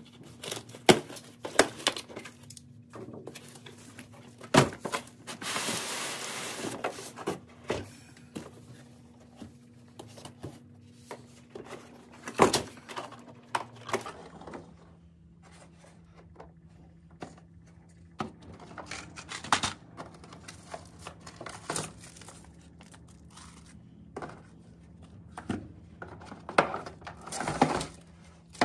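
Unpacking and handling sounds: a stretch of packaging crinkling and tearing a few seconds in, with scattered knocks and clicks as a hard plastic tool carrying case is handled and opened.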